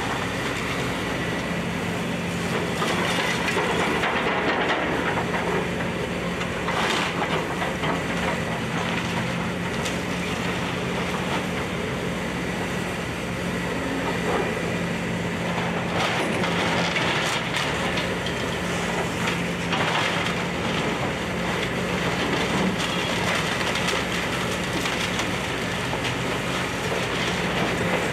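Case excavator's diesel engine running steadily as the machine crunches and breaks up wooden house debris, with a few sharper cracks and knocks of splintering wood.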